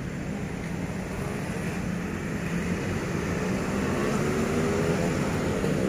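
Vehicle engine and road noise, steady and growing gradually louder, with an engine note rising in pitch in the second half.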